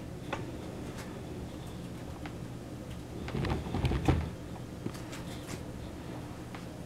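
A guinea pig chewing and tugging at mustard greens: faint scattered clicks and leaf rustling, with a low thump about three to four seconds in.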